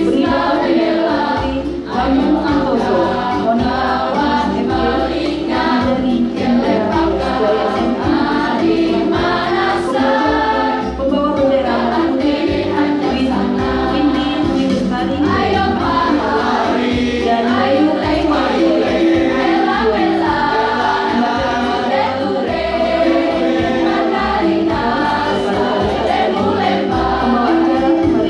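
School choir singing in unison and parts, with electronic keyboard accompaniment holding steady chords underneath.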